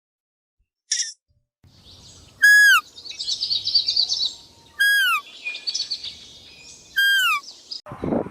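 Bird calls: a single short chirp, then three loud, clear whistled notes, each falling in pitch, about two seconds apart, over a background of high twittering from other birds.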